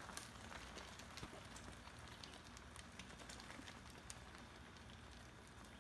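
Near silence: a faint steady hiss with a few scattered faint ticks.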